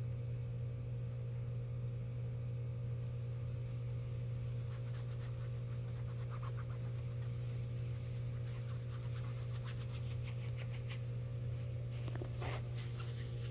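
Steady low hum, with faint scratching and rubbing sounds from about five seconds in.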